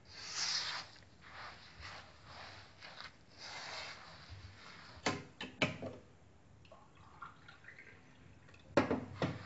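Plastic-gloved hand kneading and rubbing moist semolina dough in a clay bowl: a run of gritty, rhythmic swishes, then a few sharp knocks about five seconds in and a louder cluster of knocks near the end.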